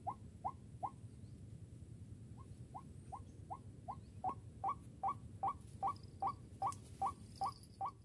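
White-breasted waterhen calling: a series of short, squeaky rising notes, about two and a half a second, breaking off about a second in and resuming, then growing louder.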